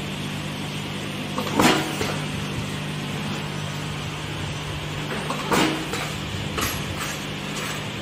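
Connector-pin crimping machine with a vibratory feeding bowl running: a steady hum, with the crimp press striking sharply about one and a half seconds in and again about five and a half seconds in, and lighter clicks in between.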